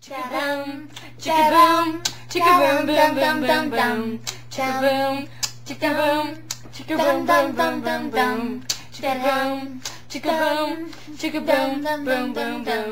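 Female voice singing a tune, with hand claps, over a steady low hum.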